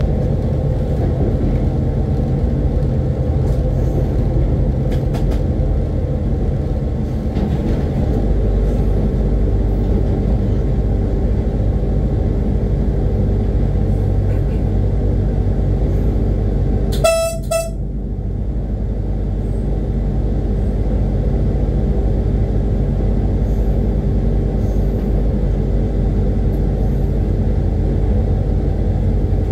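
Steady low drone of a CRRC QSY diesel-electric locomotive running, heard from its cab. A little past halfway, the locomotive's horn gives one short blast.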